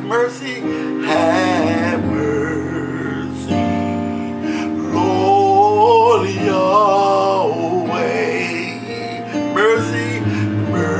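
A man singing a gospel song into a microphone, holding long wavering notes over instrumental accompaniment.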